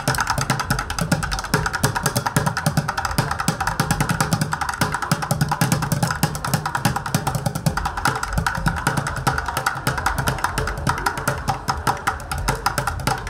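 Bucket drumming: drumsticks beating fast, dense rhythms on upturned plastic buckets.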